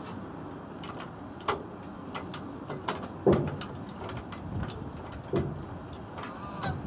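Irregular light metallic clicks and ticks, with three louder knocks spread through, about a second and a half, three and a quarter, and five and a half seconds in, and a brief squeak near the end: tools and truck door hardware being handled.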